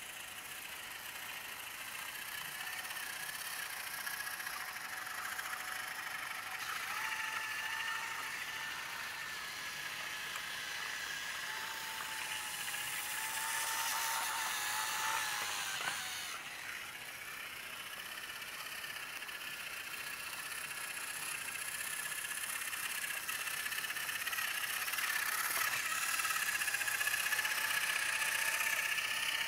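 Battery-powered toy train engines running on wooden track: the steady whir of their small electric motors and gears. It swells as an engine passes close about halfway through, dips briefly, then builds again toward the end.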